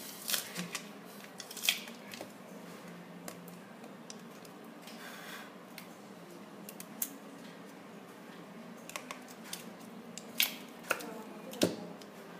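Scattered small clicks, taps and scrapes of a thin plastic pry card working under a swollen iPhone 5 battery and prising it out of the phone's case. Two sharper clicks near the end stand out.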